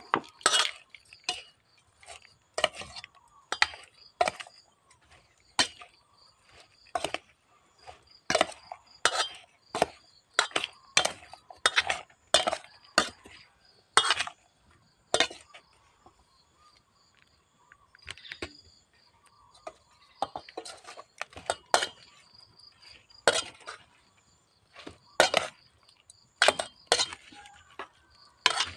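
Metal spoon clinking and scraping against a stainless-steel pot while tossing wet chopped pods in seasoning, in irregular strikes about one or two a second, with a short pause about halfway through.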